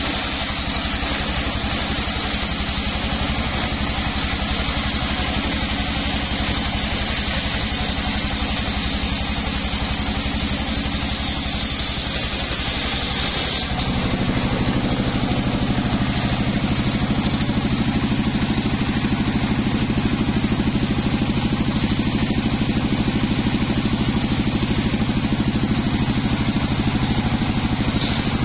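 Engine-driven circular saw bench running steadily while teak is fed through the blade, a high cutting whine over the engine's drone. About halfway through the sound changes abruptly: the low drone grows louder and the high whine drops back.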